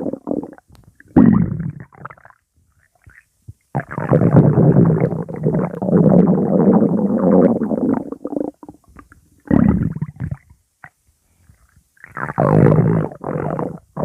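Stomach growling in separate rumbles: a short one about a second in, a long one of about five seconds starting near four seconds, and two shorter ones near ten and thirteen seconds.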